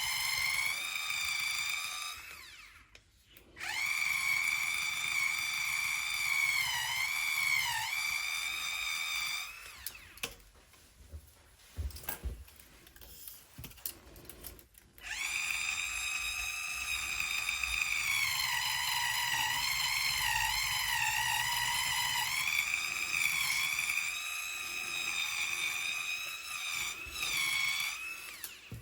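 A small high-speed electric hand tool's motor whining in three long stretches, stopping twice. Its pitch dips and recovers as it bears down on the work.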